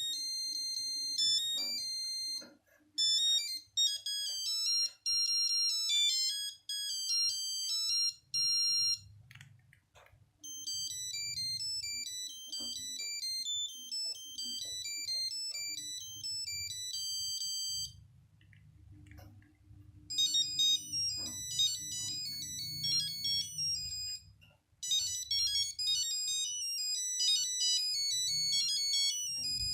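Nokia 8210 mobile phone playing its monophonic ringtones, one short beeping melody after another, with brief pauses between tunes.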